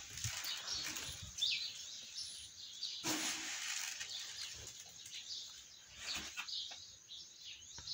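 Small birds chirping in short, repeated calls, with a brief swishing rustle about three seconds in.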